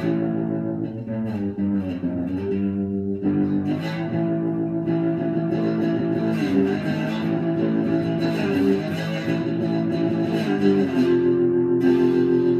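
Electric guitar played continuously, with held notes and chords ringing; between about one and three seconds in the pitch bends down and back up.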